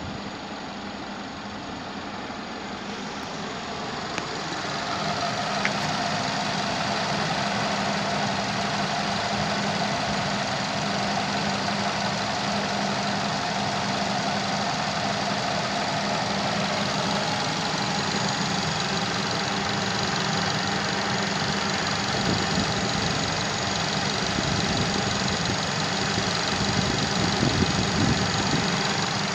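2017 Nissan X-Trail's 2.5-litre QR25 four-cylinder petrol engine idling steadily, heard close up in the open engine bay. It gets somewhat louder about five seconds in.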